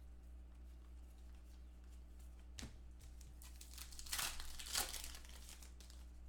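Foil trading-card pack wrapper being torn open and crinkled by hand: a brief crinkle about two and a half seconds in, then a louder run of tearing and crinkling between about four and five seconds in, over a low steady hum.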